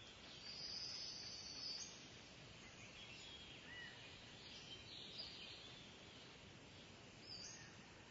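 Faint bird calls over a quiet outdoor background hiss: a thin high note held for about a second and a half early on, then a few short chirps.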